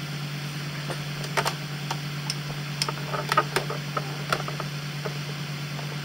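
Small AC fan motor running with a steady low hum, with scattered, irregular ticks and clicks on top.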